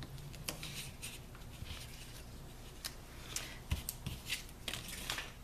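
Cardstock and double-sided adhesive tape being handled: scattered crisp rustles and light ticks as strips of tape are laid along the tabs of a paper box and pressed down, busier in the second half.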